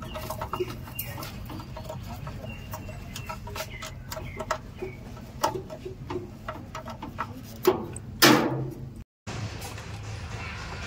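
Light clicks and taps of hands working wire ends into the terminal block of a three-phase electricity meter, over a steady low background rumble. About eight seconds in comes a louder scraping rustle, and just after it the sound drops out for a moment.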